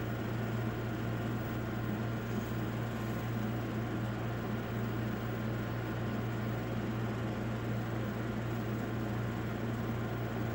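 Steady low hum under a faint hiss, with no change: background machine or room noise.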